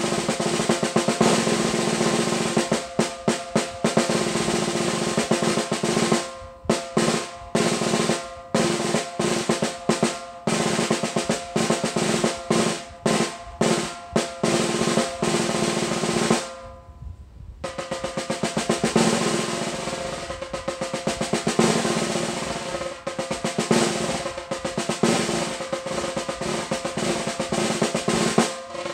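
Snare drum played with wooden sticks as a solo etude: fast rolls and strokes, with a stretch of separate accented strokes about six seconds in. The playing breaks off for about a second near the middle, then resumes.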